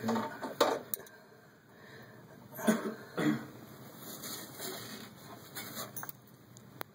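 A person coughing twice, short and sharp, about half a second apart near the middle, with a few soft knocks and clicks around them.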